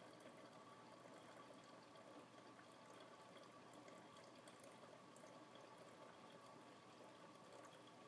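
Faint, steady trickling and dripping of coffee brewing in a large commercial coffee brewer, with scattered small drip ticks.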